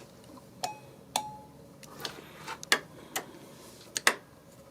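Light metallic clicks and taps, about seven of them at irregular intervals, one ringing briefly, as an automotive test light's probe is touched against wiring and bare metal while checking a wire for a short to ground.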